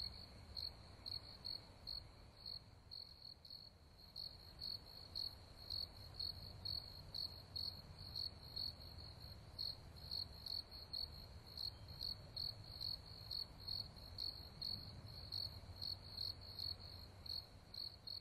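A cricket chirping steadily at night, short high chirps at about two to three a second, over a faint low rumble.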